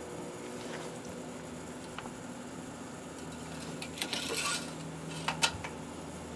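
Light metallic clinks and a short rattle, about four and five seconds in, over a faint steady hum.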